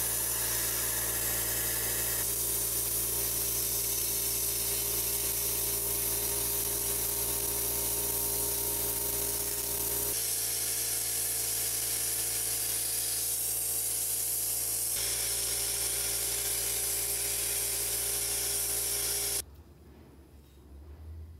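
Sandblasting gun in a blast cabinet, blowing abrasive onto rusty cast-iron grater parts to strip rust and paint: a loud, steady hiss over a low hum. It cuts off suddenly near the end.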